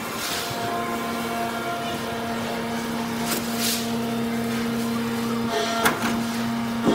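Horizontal hydraulic metal baler running: a steady hum from its electric motor and hydraulic pump, with two short bursts of hiss. Near the end the hum breaks off briefly and two sharp metallic knocks sound about a second apart.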